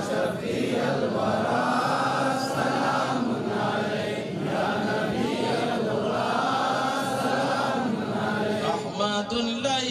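A crowd chanting an Arabic salaam to the Prophet together, many voices at once in a dense, unbroken group chant.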